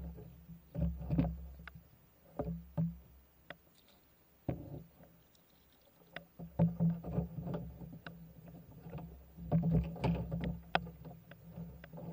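Paddling a small boat with a bamboo paddle: irregular paddle strokes, with splashes of water and sharp knocks of the paddle against the side of the boat, over a low rumble.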